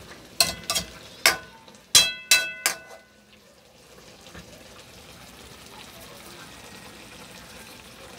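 A metal spoon knocks against the side of a metal pan of chicken adobo about six times in quick succession, each knock ringing briefly, then stops a few seconds in. After that only the low, steady sizzle of the sauce cooking in the pan is heard.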